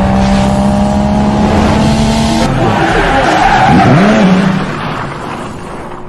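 Loud stock sound effect of a sports car: the engine holds a steady note, then the tyres squeal with a swooping pitch, and it fades away over the last second or two.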